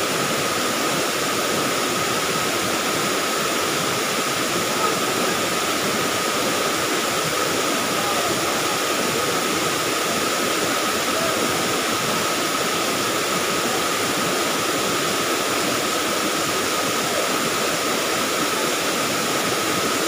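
Curtain waterfall and the river rapids below it rushing in a loud, steady, unbroken wash of falling and flowing water.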